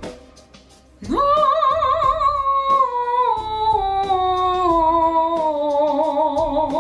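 A woman singing an operatic vocal exercise: about a second in she slides up to a high note, then sings down a scale in steps, each note with a wide vibrato.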